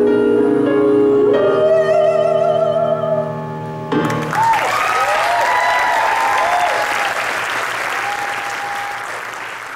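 A woman holds the last sung note with vibrato over sustained keyboard piano chords, and both cut off together about four seconds in. The audience breaks straight into applause with cheers and whoops, fading toward the end.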